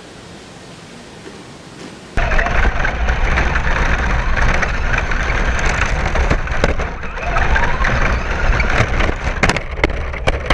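Radio-controlled Traxxas truck driven hard over gravel and dry leaves, heard from a camera mounted on it: a dense crunching, rattling rumble of tyres and chassis that starts abruptly about two seconds in, with a string of sharp knocks and clatters near the end as the truck bounces over rough ground.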